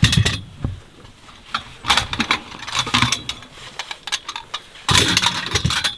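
Metal IGT table legs clinking and clattering as they are pulled from a bag and handled, in several short bursts, the longest near the end.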